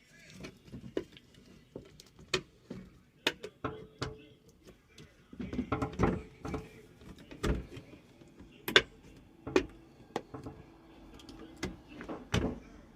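Irregular knocks, clicks and clatter of hard parts and tools being handled while a garbage disposal is fitted under a kitchen sink, with a loud knock about nine seconds in.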